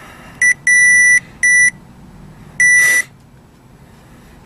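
Short finder (circuit tracer) receiver beeping at one steady high pitch as it picks up the tracer signal on a wire, four beeps of uneven length in the first three seconds. Where the beeping drops out is where the signal disappears, marking a break in the wire. A short rustle sounds with the last beep.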